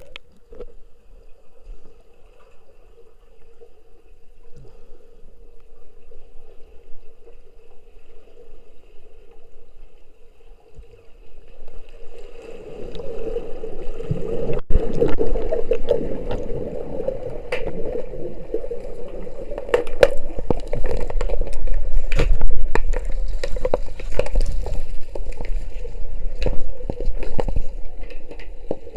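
Underwater pool sound picked up by an action camera in its waterproof housing. For about the first twelve seconds it is quieter, with a faint steady hum. Then it turns to louder sloshing and gurgling water with sharp knocks scattered through.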